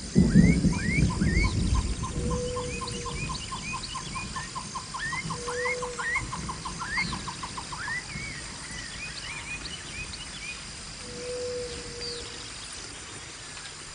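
Forest ambience: several birds calling with short rising chirps, one of them giving a fast, even run of short notes, about six a second, that stops about eight seconds in, over a steady high insect hum. A low rumble fills the first couple of seconds.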